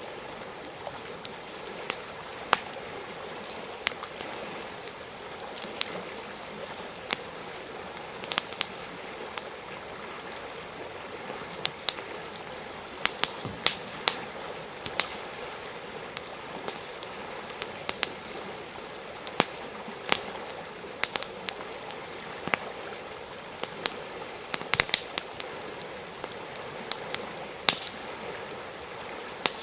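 Wood campfire crackling, with irregular sharp pops and snaps over a steady rushing hiss.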